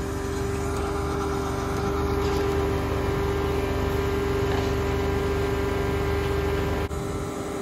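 Large diesel engine running steadily, a low rumble with a steady whine over it. The low rumble drops abruptly near the end.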